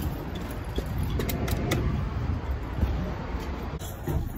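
Low rumbling noise and handling noise from a phone being moved about, with a few light clicks or jingles about a second and a half in.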